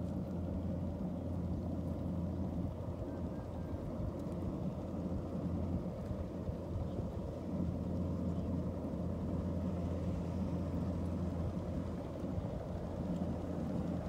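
Kubota DC-105X rice combine harvester's diesel engine running steadily under load as the machine cuts and threshes standing rice, a constant low drone.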